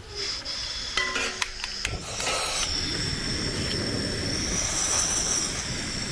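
A few sharp clicks, then from about two seconds in the steady hiss and rumble of a gas-cylinder burner flame, with a faint high whistle over it.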